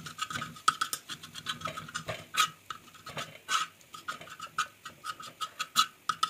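A utensil's edge chopping fried egg into small pieces on a flat pan: quick, irregular taps and scrapes against the pan surface, several a second.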